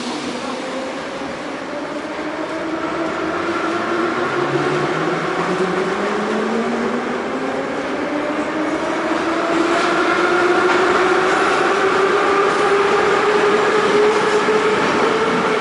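81-717/714 metro train accelerating away from a station, heard from inside a passenger car. The traction motors' whine rises steadily in pitch as it picks up speed, over the rumble of the running gear, and grows louder.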